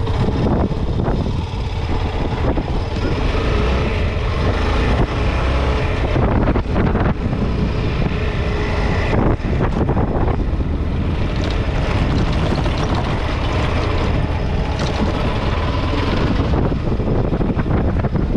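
Honda Falcon 400 single-cylinder motorcycle running under way, with heavy wind rumble on the microphone.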